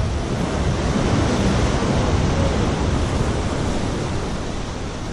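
Steady wind buffeting the microphone over the rush of choppy sea surf, a constant noise heaviest in the low end.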